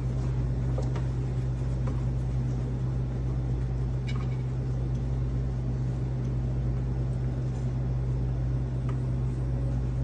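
Steady low mechanical hum with a few faint, light clicks.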